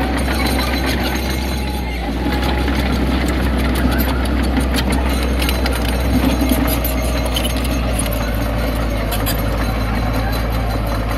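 Heavy diesel earthmoving machine engine running steadily, with scattered short clanks and rattles over it.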